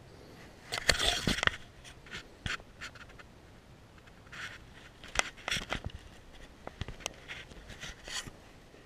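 Irregular gritty clicks, scrapes and crunches of footsteps on a tiled floor littered with plaster debris. The loudest cluster comes about a second in, with scattered steps and scuffs after it.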